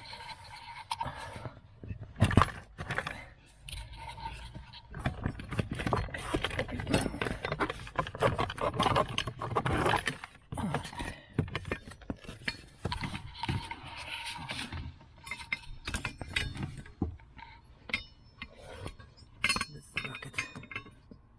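A metal dashboard bracket being worked loose and pulled out from behind the glove-box opening: irregular knocking, scraping and rattling of metal against plastic trim, with a few sharp metallic clinks near the end.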